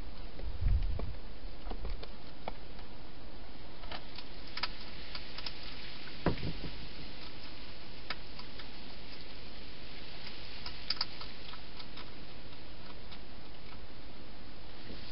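Wild hedgehog inside a clear plastic feeding box, making scattered sharp clicks and ticks as it eats and moves about against the plastic, over a steady hiss. There are a couple of low knocks, about a second in and again around six seconds.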